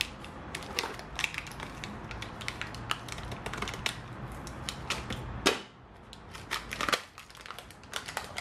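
Scissors cutting through a plastic blister pack and its cardboard backing: a run of sharp snips and crunching plastic crackles, the loudest snip about five and a half seconds in. Near the end the plastic crinkles as the pack is pulled open by hand.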